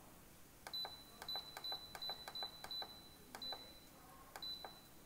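Instant Pot electric pressure cooker's control panel beeping as its minus button is pressed again and again: about eight short, high single beeps, each with a light button click, coming quickly at first and more spaced out near the end. Each beep marks one minute taken off the pressure-cook time.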